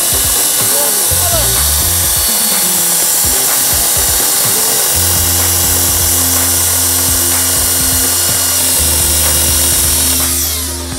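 Chainsaw running flat out and cutting, steady and loud, over background music with a beat; the saw stops about ten seconds in.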